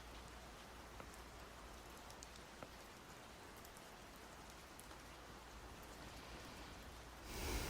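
Faint steady rain with scattered light drop ticks. Near the end, a brief louder rush of noise swells and fades.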